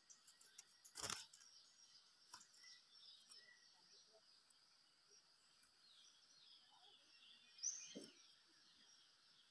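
Near-silent woodland ambience: a faint, steady high hiss with a few faint bird chirps, broken by two brief rustles, about a second in and again near the end.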